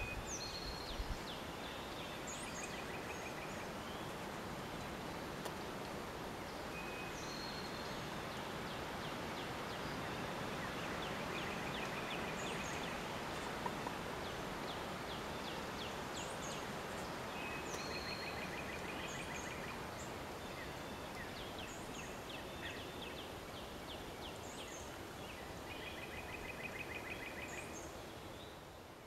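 Woodland songbirds calling, with a short trill and high chirps repeated every several seconds, over a steady hiss.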